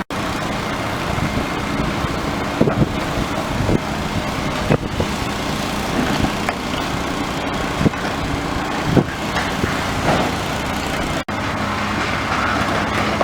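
Excavator's diesel engine running steadily during demolition, with a handful of separate knocks and crunches as building material is struck and pulled down.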